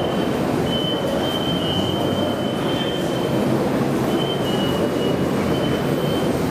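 Keikyu 1500-series electric train moving slowly into the platform with a steady rumble. A thin high squeal comes and goes twice as it draws up.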